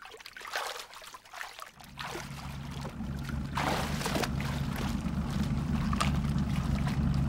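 Water splashing and sloshing around swimmers. About two seconds in, a motorboat's low steady engine hum starts and grows louder as it comes closer.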